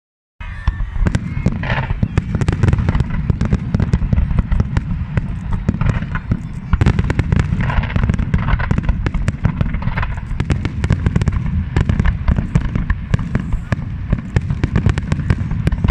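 A fireworks display going off in a rapid, unbroken barrage of bangs and crackles over a steady low rumble.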